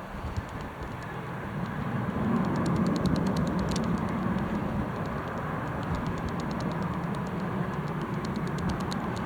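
Wind gusting over the microphone with a jet airliner's engines running, the noise swelling from about two seconds in and staying loud, with faint rapid crackling from the wind.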